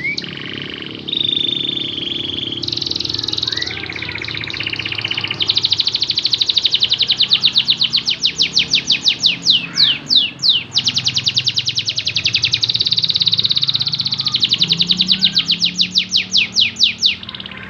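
Domestic canary singing a long, continuous song of fast rolling trills and held whistled notes. The song switches between different trill types every second or two.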